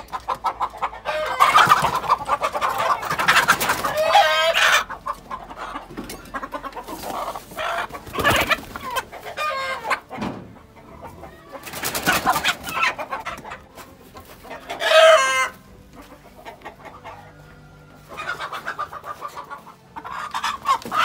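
Chickens clucking and squawking in about five loud bursts, one sharp squawk about two-thirds through, as hens are caught and carried upside down by their legs.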